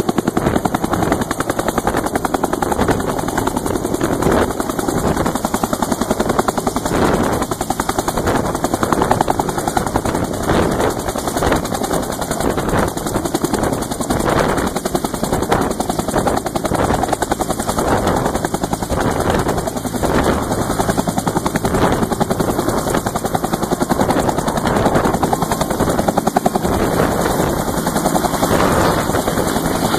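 Bell UH-1 'Huey' helicopter taking off, loud and steady, its rotor beating in a fast, even rhythm.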